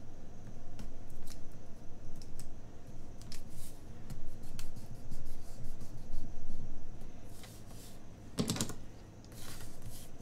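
Light clicks, taps and rustles of paper planner pages and a sticker sheet being handled on a desk, with a louder paper rustle about eight and a half seconds in.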